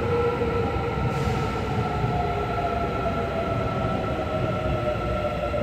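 Suin–Bundang Line electric subway train pulling into an underground station: a continuous rumble of wheels on rail, a steady high whine, and a lower tone that slowly falls in pitch as the train slows.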